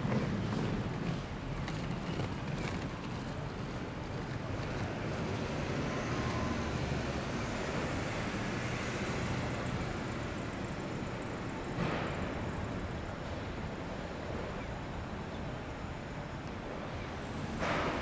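Steady city road traffic: cars and vans in slow, congested traffic, engines running and tyres on asphalt. Two brief louder swells, about twelve seconds in and near the end, as vehicles pass close.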